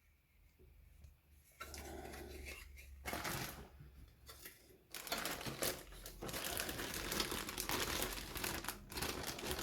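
Crinkling of a plastic model-kit parts bag being handled and opened. It starts faint, and from about halfway through it becomes louder and busier.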